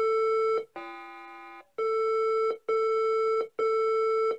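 ZX Spectrum beeper sounding DiagROM's RAM test result as a series of steady electronic beeps, about one a second. The second tone is lower, quieter and fades, unlike the higher steady beeps around it. The beeps report which RAM bits work and which are broken, and the odd tone flags the faulty bit.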